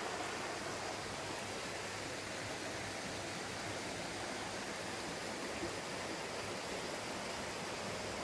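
Shallow stream running over flat rock ledges and stones: a steady, even rush of water.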